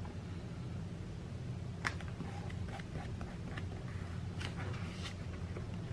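Light taps and soft paper rustles of washi tape being pressed and smoothed onto a paper journal page by hand, with a sharper tap about two seconds in and a few more near the end, over a steady low hum.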